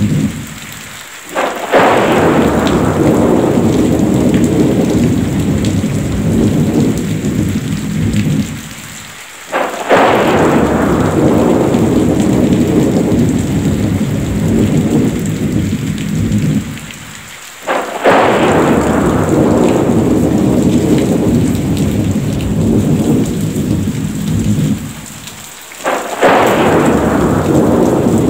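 Thunderstorm: heavy steady rain with a thunderclap about every eight seconds, each starting suddenly and rumbling away into the rain, four times in an evenly repeating pattern.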